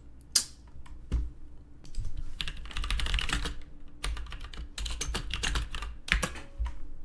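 Typing on a computer keyboard: a few scattered keystrokes, then two quick runs of rapid key clicks.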